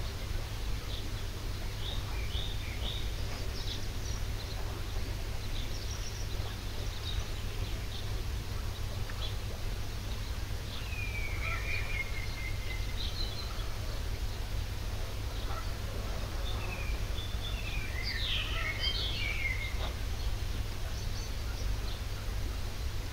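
Steady low rumble, with scattered chirps and calls of small birds over it: a longer call that falls and then holds about eleven seconds in, and a quick burst of calls around eighteen to nineteen seconds.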